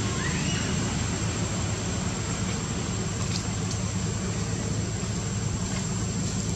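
A steady low, engine-like drone with an even hiss and a thin, steady high-pitched whine over it. A short rising-then-falling chirp comes about half a second in.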